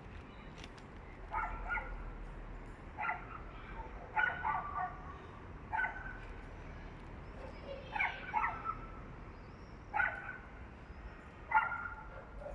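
Two dogs barking in short bursts, a single bark or a quick double bark about every one and a half to two seconds.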